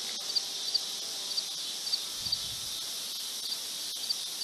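Insect chorus at dusk: a steady high-pitched hiss with a short cricket-like chirp repeating evenly, about two to three times a second.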